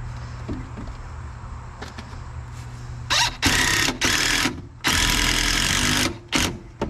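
Power driver sending screws into new wood framing in a series of short, loud bursts of uneven length, starting about three seconds in, over a low steady hum.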